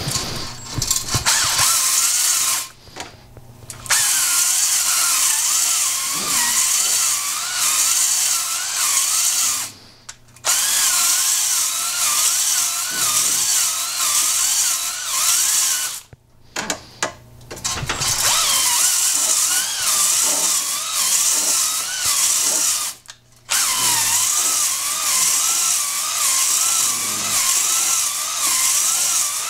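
Cordless drill spinning a ball hone (a deglazing hone of small abrasive balls) inside the bore of a Yamaha 701 two-stroke cylinder, scrubbing the bore to deburr the freshly chamfered ports. It gives a steady whine that wavers in pitch over a hissy scrubbing noise, stopping briefly four times as the drill is switched between forward and reverse.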